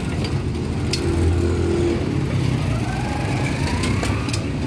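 Street traffic: a motor vehicle engine running close by, its pitch rising in the second half as it speeds up, with a few sharp clicks over the steady background.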